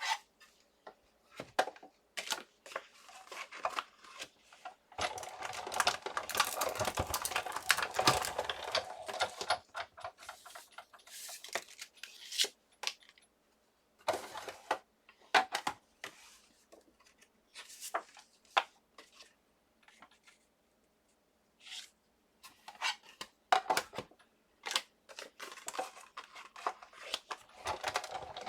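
Die-cutting work at a Sizzix Big Shot: cardstock, a steel-rule die and plastic cutting plates being handled, giving scattered clicks and taps. About five seconds in comes a dense crunching rattle lasting about five seconds, the plates being cranked through the machine's rollers.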